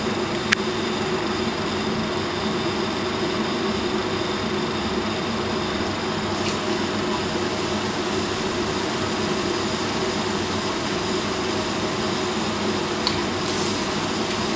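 Battered food frying in a chip-shop range's deep-fat fryer, the oil sizzling and bubbling over the steady hum of the range's extraction fan. The sizzle grows brighter about six seconds in, and there is a single sharp click about half a second in.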